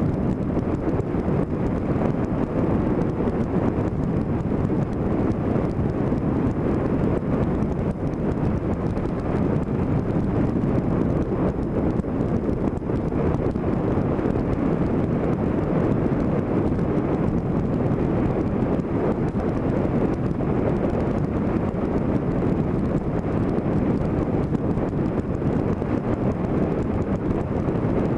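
Steady wind rush on the microphone mixed with the road noise of a moving vehicle.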